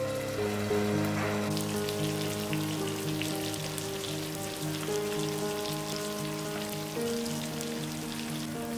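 Instrumental background music with a steady pulse of changing notes, over the crackling sizzle of food frying in hot oil in a pan; the sizzle picks up about a second in.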